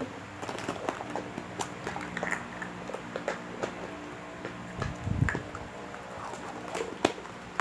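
Plastic surprise-egg capsules and toy wrappers being handled and opened: scattered small clicks and crinkles, with a dull thump about five seconds in.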